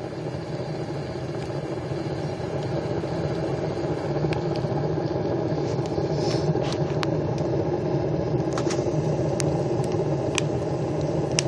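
Rocket heater burning hard on a fresh load of corn: a steady rumbling draft roar from the burn chamber that slowly grows louder, with scattered sharp crackles and pops from the burning fuel.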